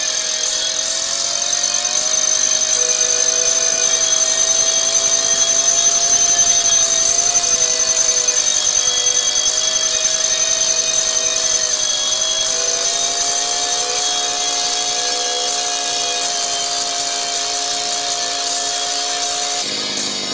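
Thrall DHD-58 petrol rotary hammer drill, its 32.6 cc single-cylinder two-stroke engine running at high speed as the spiral bit drills into rock. The pitch sags slightly about seven seconds in and climbs back about twelve seconds in; the sound cuts off suddenly near the end.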